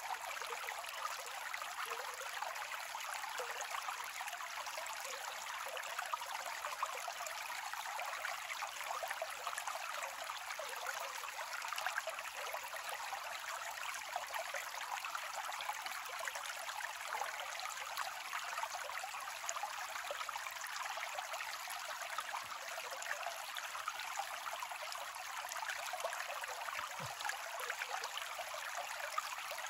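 Steady rushing of a flowing stream over stones.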